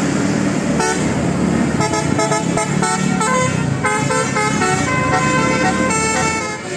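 A bus's Basuri telolet horn, a multi-note musical air horn, playing a quick melody note by note from about a second in, over the low rumble of the vehicle's engine.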